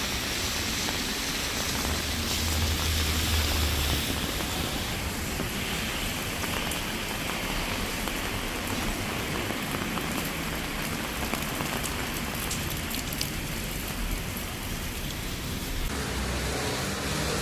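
Steady rain falling, a continuous hiss whose tone shifts about four seconds in and again near the end, with a low rumble in the first few seconds.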